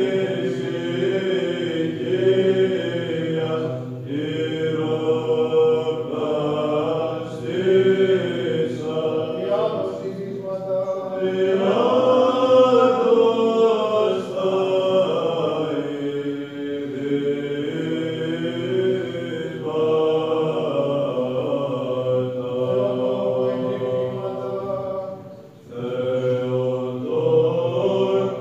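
Greek Orthodox Byzantine chant (psalmody): voices sing a slow, melismatic melody over a steady held drone, the ison. The singing breaks off briefly near the end and then resumes.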